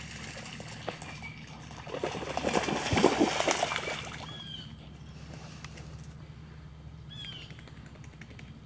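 Dogs splashing through shallow pond water, a loud rush of splashing that peaks about three seconds in and then dies away as they run out onto the bank. A bird calls with short, repeated downward chirps.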